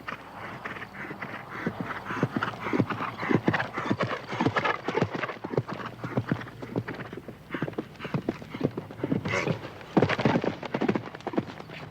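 A horse's hooves striking the ground again and again in quick succession, as over a jumping course, with the loudest cluster of strikes about ten seconds in.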